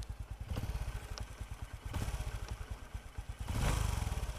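Honda Future II's single-cylinder four-stroke engine idling with an even, quick beat, just repaired and running smooth and light. It grows louder for a moment near the end.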